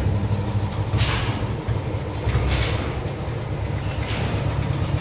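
Yamaha Lexi scooter engine idling too low, under its normal 1400–1600 rpm: a steady low throb, with a short hiss recurring about every second and a half. A fault typically traced to the idle speed control (ISC).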